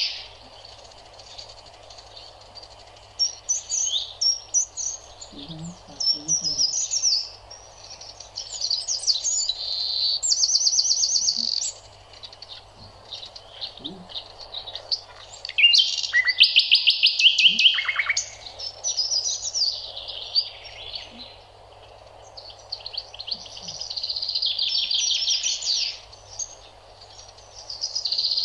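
Small songbirds chirping and singing in phrases of rapid, high-pitched trills, several overlapping, with the loudest trill about halfway through.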